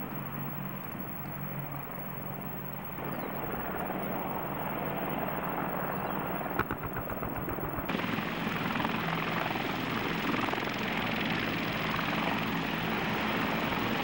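Military helicopter turbines and rotors running: an AH-64 Apache hovering, with a steady hum and rush and a brief run of rapid thumps about six and a half seconds in. About eight seconds in the sound switches suddenly to a louder, hissier turbine-and-rotor rush from three CH-146 Griffon helicopters.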